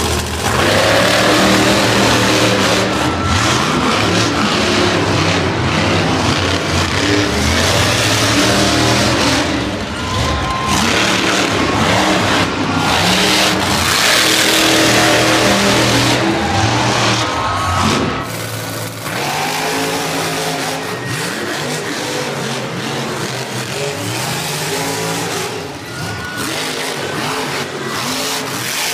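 Monster truck engine revving and easing off again and again as the truck drives, its pitch climbing and falling. It is loudest for the first two-thirds and quieter after that.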